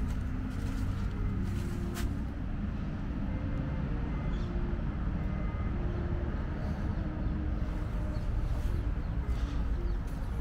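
Steady low outdoor rumble, with a few faint sharp clicks.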